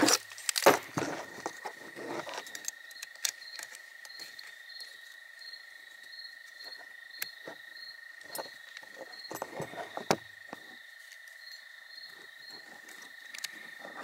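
Knocks and metal clinks from a tubular aluminium rucksack frame and its strap hooks being turned over and hooked onto the frame bars, the loudest in the first second and again about ten seconds in. A steady high chirring of insects runs behind.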